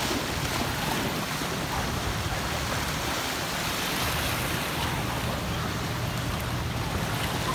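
Small lake waves breaking and washing on a sandy shoreline: a steady, even wash of water with a low background rumble.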